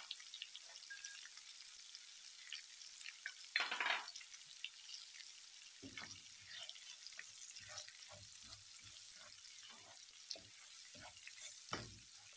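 Oil frying in a pan with green onion, garlic and spices, a steady sizzle. There is a brief louder burst of noise about four seconds in. From about six seconds in, a silicone spatula stirs the mixture, with short uneven scrapes and knocks against the pan.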